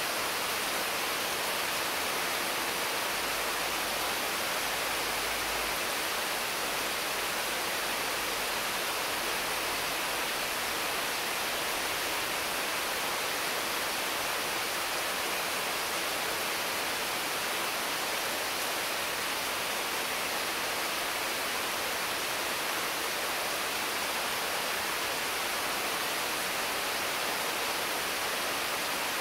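Intense, constant rain falling on the leaves of mango and papaya trees: a steady, even hiss with no breaks.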